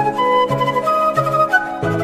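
Background music: a flute melody with sliding notes over a low accompaniment.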